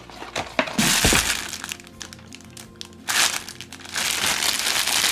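Clear plastic packaging around a pack of squishy stress balls crinkling as it is handled, in two stretches, with a short knock of something set down about a second in.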